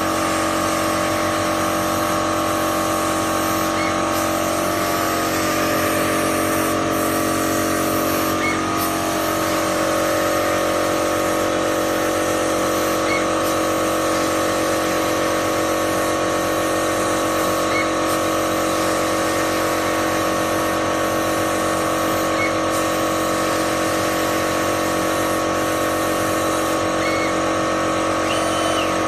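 Automatic pattern sewing machine with a laser cutting head running continuously: a steady mechanical drone made of several held tones.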